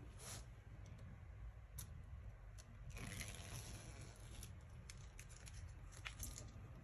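Clear plastic screen-protector film being peeled off its backing sheet: a faint crackling rustle starting about three seconds in and lasting about a second and a half, followed by a few light clicks as the film is handled.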